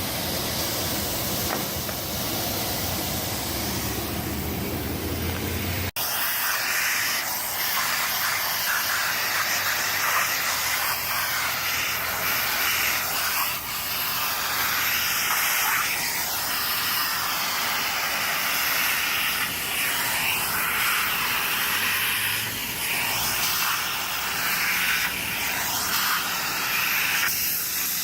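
Automatic car wash machinery working over the car, heard from inside: a steady, loud hiss against the body. A low rumble under it for the first few seconds cuts off abruptly about six seconds in, leaving the hiss alone.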